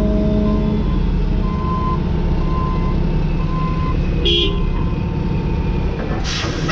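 John Deere 210G excavator's diesel engine running steadily, with a truck's backup alarm beeping about once a second as the dump truck reverses under the raised bucket. A short hiss with a falling tone cuts in near the end.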